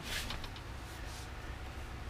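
Quiet garage room tone with a steady low hum, and two short soft rustling noises, one as it begins and another about a second in, such as camera handling.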